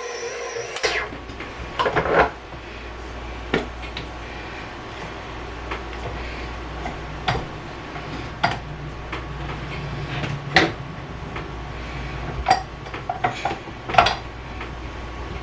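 Kitchen utensils and dishes clinking and knocking: scattered sharp clicks every second or two, after a steady whir cuts off just under a second in.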